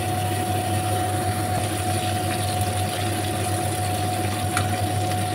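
Steady mechanical hum with a constant faint high tone running under the kitchen noise, and a single light metal clink of tongs against the aluminium frying pan about four and a half seconds in.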